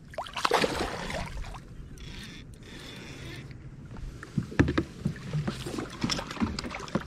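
A largemouth bass splashing at the surface as it is lifted from the water, then a series of sharp knocks and thumps on the plastic hull of an Old Town PDL 106 pedal kayak as the fish is swung aboard and handled.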